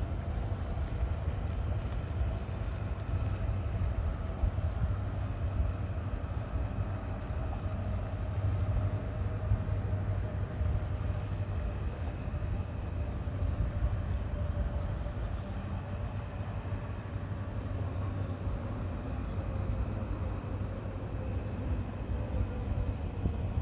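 A vehicle running steadily: a low rumble with a faint whine that slowly drifts down in pitch.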